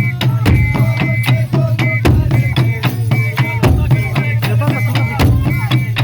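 Music with a quick, steady percussion beat and short melodic notes over a sustained low tone.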